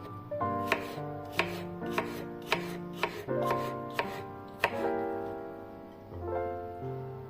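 Knife chopping on a cutting board, about eight sharp irregular strikes over the first five seconds, with soft piano music underneath.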